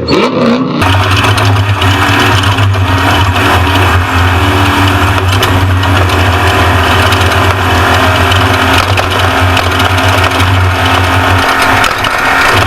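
Off-road race truck's engine running hard at a steady pitch under a loud, even rush of noise. The engine note is unsettled for about the first second, then holds steady.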